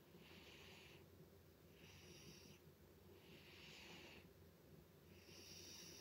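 Sleeping cat snoring: four faint, hissy breaths, one about every second and a half.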